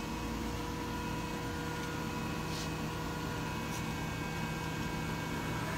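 Five-axis CNC machining center humming steadily as its program starts, with several faint steady whining tones from its drives and spindle. No cutting or coolant yet.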